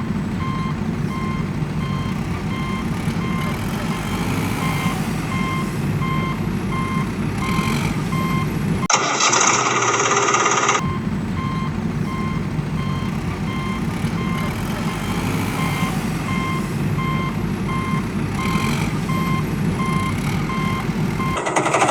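Heavy machine engine running with a reversing alarm beeping steadily. About nine seconds in, the beeps break off for roughly two seconds while a louder, hissier noise takes over, then they resume.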